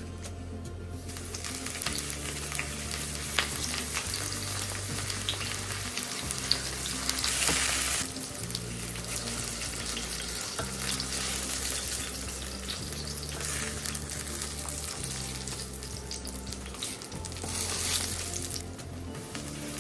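Food frying in hot oil in a pan, sizzling steadily with some stirring; the sizzle swells louder about seven seconds in and again near the end.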